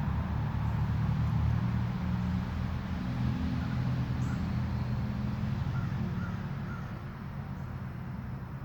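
Low rumble of road traffic, a vehicle's engine hum fading slowly, picked up through a parabolic microphone, with a few faint short calls over it.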